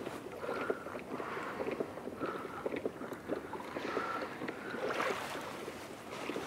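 Water lapping and dripping against a kayak's hull: many small irregular splashes and ticks, with a slightly fuller splash about five seconds in.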